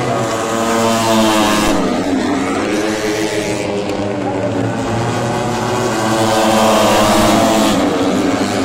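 Moto3 race motorcycles, 250 cc single-cylinder four-strokes, running past on the circuit. Their engine pitch falls and rises as they pass and change gear, loudest about three-quarters of the way through.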